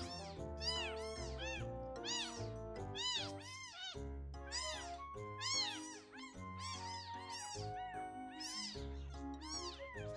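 Newborn kitten mewing over and over while being bottle-fed, short high-pitched cries about three a second, with soft background music underneath.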